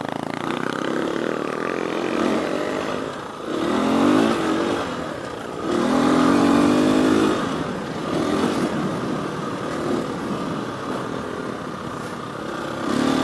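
Husqvarna FE350 single-cylinder four-stroke dirt bike engine running while riding, its revs rising and easing off several times, loudest around four and six seconds in.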